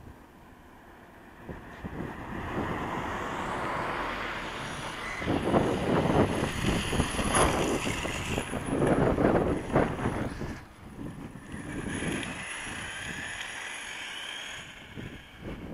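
A Traxxas E-Revo RC truck's 6S brushless motor whines up and down in pitch as the truck speeds and drifts. Loud gritty tyre scrub and gravel spray come from about five to ten seconds in, as the truck slides on the dusty surface.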